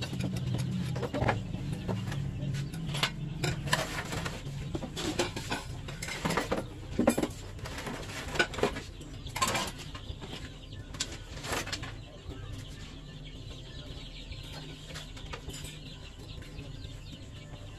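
Thin wooden slats clattering and knocking together as they are handled and laid across a wire-mesh wooden tray frame: a string of sharp knocks that thins out after about twelve seconds.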